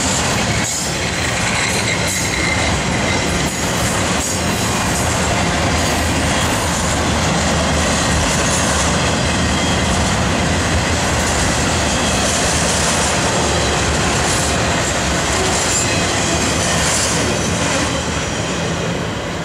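Freight train of flatcars loaded with highway trailers rolling past: steel wheels running on rail in a steady, loud rumble.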